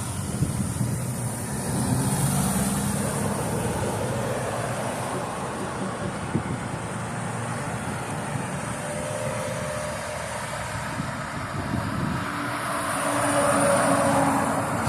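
Road traffic: vehicles driving past, engines and tyres, with a louder vehicle going by near the end.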